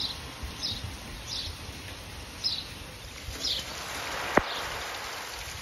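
Steady rain falling on grass and gravel, with a small bird chirping repeatedly in short high notes about twice a second. A single sharp click a little over four seconds in.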